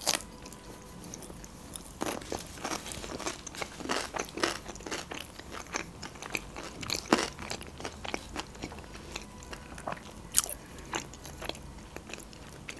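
Close-miked chewing of a mouthful of crisp nori sheet wrapped around raw salmon and cream cheese: irregular crunches and wet mouth clicks.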